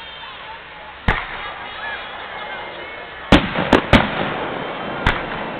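Fireworks going off: five sharp bangs, one about a second in and then a quick cluster of three in the middle, with another near the end.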